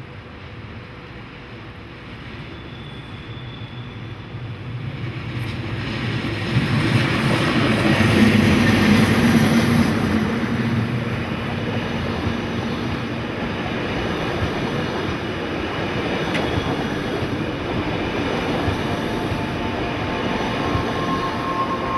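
Metre-gauge Matterhorn Gotthard Bahn electric train, a locomotive hauling Glacier Express panorama coaches, approaching and passing close by. Its rumble grows over several seconds and is loudest about eight to ten seconds in, with a hum from the locomotive. Then comes the steady rolling rumble of the coaches going past.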